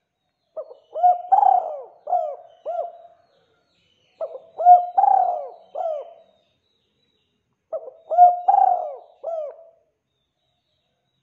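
Spotted dove cooing: three phrases of several coos each, a couple of seconds apart.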